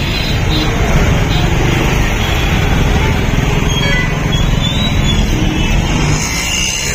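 Road traffic noise: a loud, steady rumble of vehicle engines running close by.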